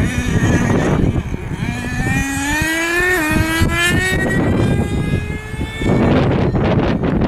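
Small nitro engine of a radio-controlled truck running at high revs, its pitch climbing steadily as the truck accelerates, with a brief dip about three seconds in. Wind buffets the microphone near the end.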